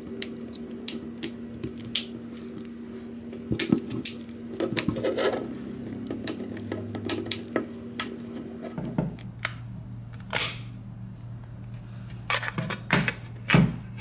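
Plastic clips of a Xiaomi Mi 4X back cover clicking and snapping loose as a plastic opening pick is worked around the seam, in irregular sharp clicks over a steady low hum.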